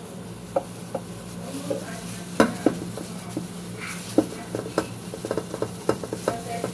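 Scouring sponge scrubbing a wet stainless steel saucepan, with many short sharp clicks and knocks of the metal pot as it is handled and tipped, the loudest about two seconds in and a run of them near the end. A steady low hum runs underneath.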